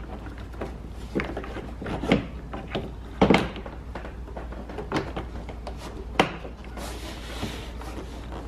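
Plastic interior door trim panel being handled and seated against a car door: a series of scattered knocks and taps, the loudest about three seconds in, with a short rustle near the end.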